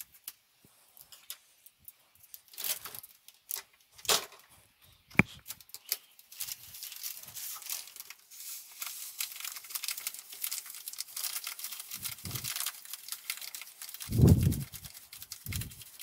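Scissors cutting open a plastic packet of dishwasher salt with a few sharp snips. Then the packet crinkles and rustles steadily as it is handled and tipped to pour the salt, with a few dull thuds near the end.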